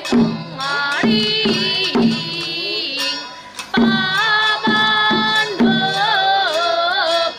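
Music: a sustained, bending melody over a regular drum beat, with a brief drop around the middle.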